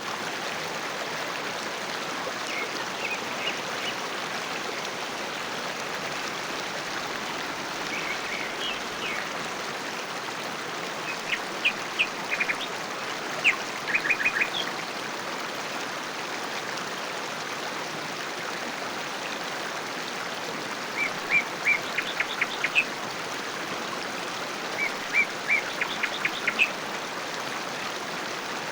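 Steady rush of a flowing river over stones, with birds chirping in short runs of quick, high repeated notes that come and go several times.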